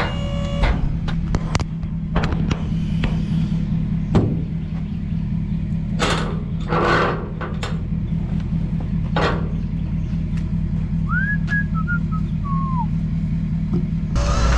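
Roll-off truck engine idling with a steady low hum, under scattered metal clicks and knocks as the container's hold-down latch is worked by hand. A short scrape comes about six seconds in, and a few brief whistled chirps come near the end.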